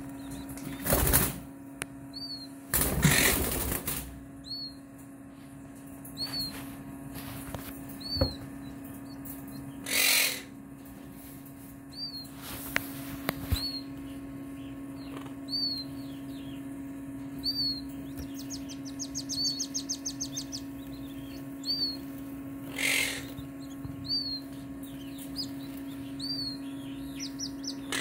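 Newly hatched button quail chicks peeping: short high single peeps every second or two, with a quick rapid trill about two-thirds of the way through. Several short bursts of noise and a steady low hum run underneath.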